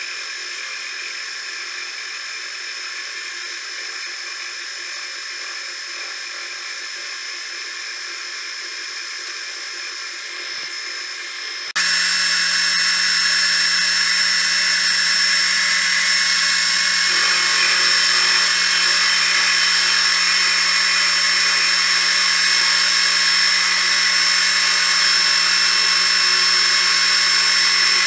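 Metal lathe running steadily, its chuck spinning a steel bar. About twelve seconds in the sound suddenly gets much louder and a steady low hum joins the whine.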